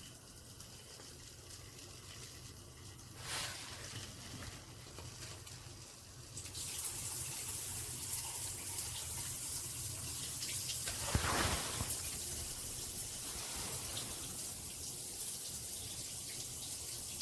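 Water spraying from a handheld LED shower head, a steady hiss that grows louder about six seconds in.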